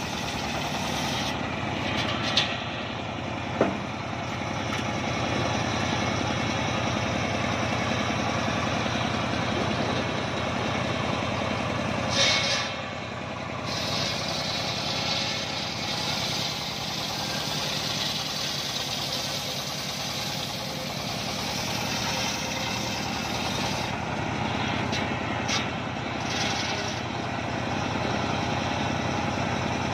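Homemade engine-driven circular sawmill running steadily as its large blade rips a mahogany log lengthwise into a slab. A few sharp knocks stand out, about two and three and a half seconds in and again around twelve seconds.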